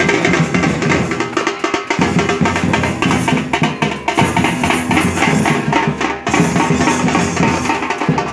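Loud music led by dense, steady drumming, with held melodic tones over the beat.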